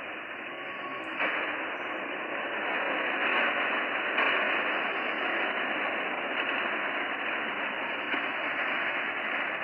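Steady static hiss like an untuned radio, from a slowed-down recording presented as a psychophony (EVP, supposed voices of the dead); it gets a little louder about a second in.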